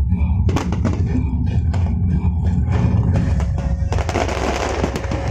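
Fireworks going off: a run of sharp bangs, then from about four seconds in a dense crackling burst, over background music with a steady low bass.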